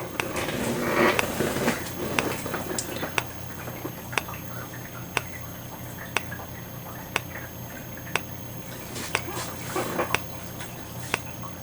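EST Integrity remote strobe (EST2028AT) flashing, with a sharp tick about once a second at each flash over its faint, steady, high-pitched capacitor squeal. A brief soft noise is heard in the first two seconds.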